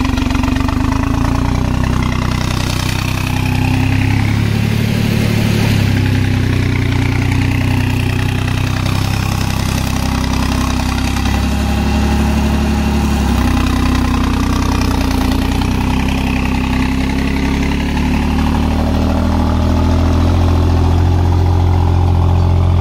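Massey Ferguson tractor's diesel engine running steadily, growing slightly louder near the end.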